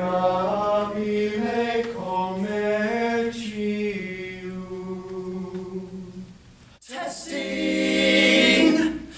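A male vocal quartet singing slow, sustained close-harmony chords a cappella, the chord changing about once a second and fading away. About seven seconds in, a new and louder held chord starts abruptly, then fades near the end.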